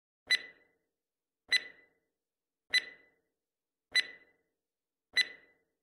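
Countdown timer sound effect: five short electronic ticks, evenly spaced a little over a second apart, each with a brief ring, counting down the time to answer.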